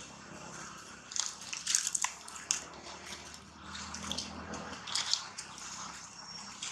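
Irregular crackling rustles of grass and dry leaves, close by, as a long-tailed macaque forages through them with its hands.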